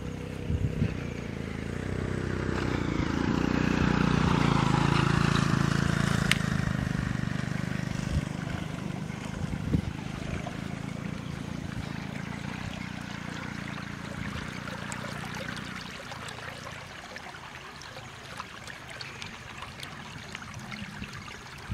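Water trickling in a shallow muddy ditch at a small wooden barrier, with a low droning hum that swells for a few seconds and then fades.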